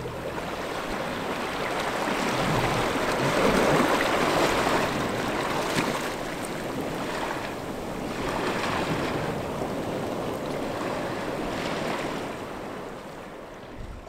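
Ocean surf: waves breaking and washing in, swelling and easing every few seconds.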